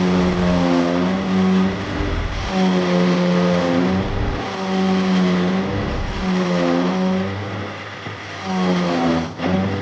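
A small motor running in repeated bursts of a second or two, its pitch dropping in each short pause before it runs up again, about five times.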